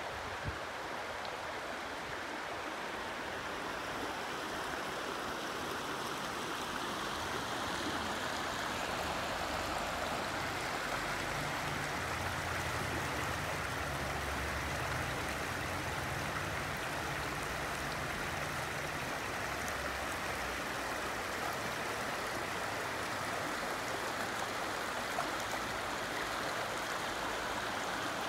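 Shallow river running over rocks: the steady rushing and splashing of water through small rapids and riffles.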